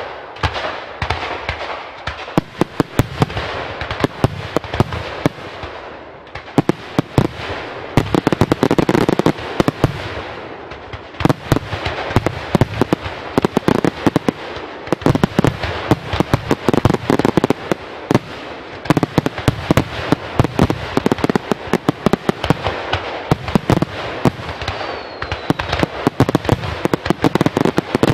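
Fireworks display: a dense, continuous barrage of bangs and crackling that starts suddenly and keeps going without a break.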